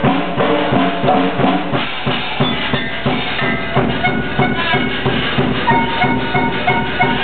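Live band music with drums keeping a quick, steady beat of about three strokes a second under held melody notes.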